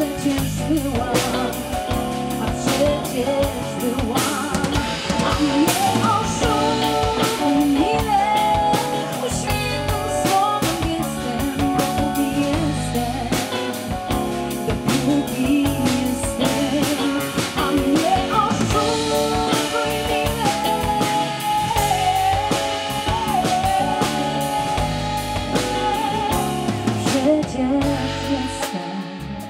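Live pop band playing: a woman singing over drum kit, electric guitar, bass guitar and keyboard. The music tails off near the end.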